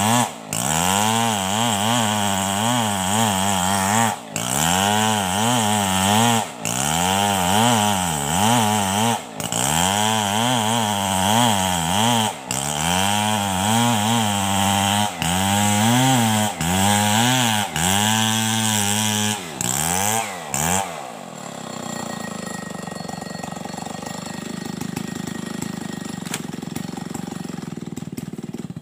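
Large two-stroke chainsaw, a Stihl 070, ripping a log lengthwise into planks. The engine pitch rises and falls under load, with brief drops every two to three seconds. About 21 seconds in, the engine sound gives way to a steadier, quieter noise.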